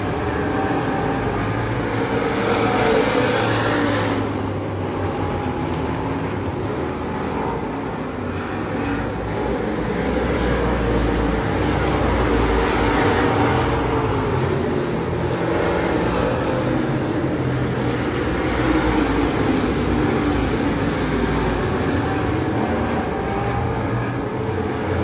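Several dirt-track stock car engines racing around the oval, a steady loud drone whose pitch keeps rising and falling as the cars accelerate and lift through the turns.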